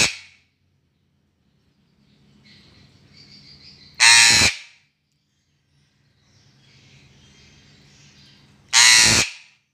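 Female Eclectus parrot (Eclectus roratus) giving loud calls about half a second long: one dying away at the start, another about four seconds in and a third near the end.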